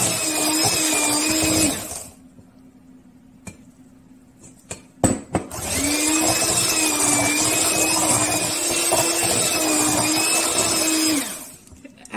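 Handheld electric mixer beating cooked potatoes into mashed potatoes in a stainless steel bowl, its hum wavering in pitch as it works. It stops about two seconds in, a few light knocks follow, then it runs again for about six seconds and stops near the end.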